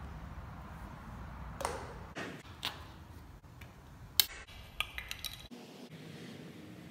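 A few light clinks and ticks, scattered and short, over a faint low rumble that fades about two seconds in.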